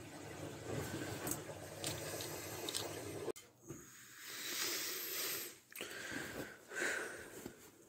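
Water running in a small bathroom, a steady rush just after a toilet flush, that cuts off abruptly a little over three seconds in. It is followed by a few short, hissy rustling noises.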